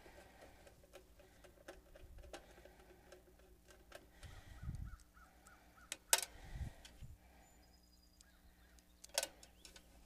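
Hands fitting a new AC contactor into the sheet-metal control box of an outdoor condenser unit and handling its wires. Scattered light clicks and dull knocks, with sharper clicks about six and nine seconds in.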